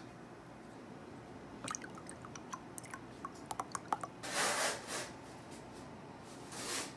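Mogu Mogu juice drink with nata de coco jelly pieces poured from a plastic bottle into a ceramic mug. Scattered drips and plops come first, then a louder splashing pour starts about four seconds in, and a short rush of splashing comes near the end.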